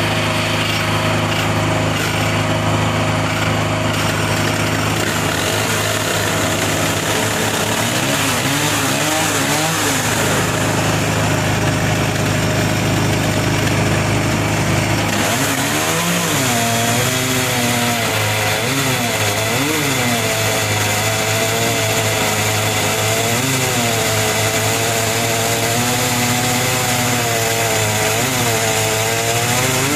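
Two-stroke chainsaw mounted on a homemade firewood processor, running at high revs and bucking a log, its pitch wavering up and down as the bar works through the wood from about halfway in. A steadier engine note runs underneath.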